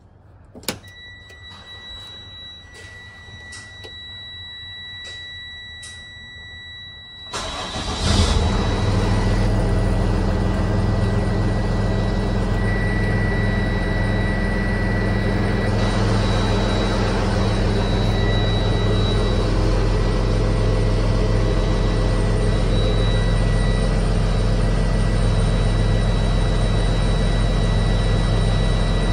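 A 2008 jet fuel truck's engine is cranked and catches about seven seconds in, then idles steadily. Before it starts a steady high warning tone sounds with a few clicks, and the tone carries on over the idle.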